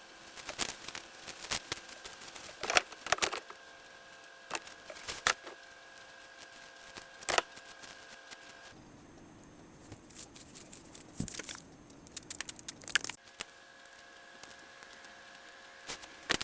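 Scattered handling noises, crinkling and sharp clicks, from hands working with items during a wig install, over a faint steady hum that cuts out and back in twice.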